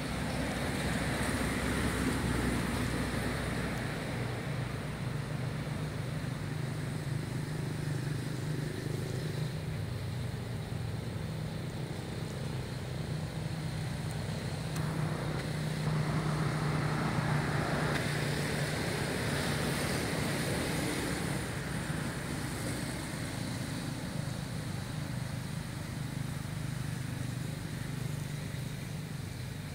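Road traffic: a steady low engine hum from passing vehicles that swells louder a couple of times as they go by.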